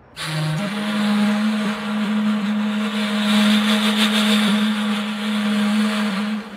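A vehicle engine running steadily with heavy noise around it, its hum stepping up in pitch about half a second in and then holding level.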